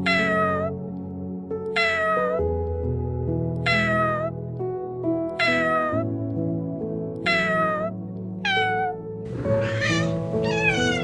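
A cat meowing repeatedly in short, high calls that fall in pitch, about one every two seconds, with two rougher meows near the end. Soft background music plays underneath.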